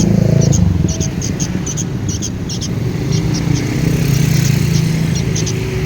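Sooty-headed bulbul chicks begging with short, high chirps in quick irregular runs, over a loud, steady low rumble.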